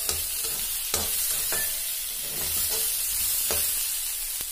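Maize kernels frying in oil in a metal wok, with a steady sizzle, while a metal slotted spatula stirs them, scraping and clicking against the pan a few times.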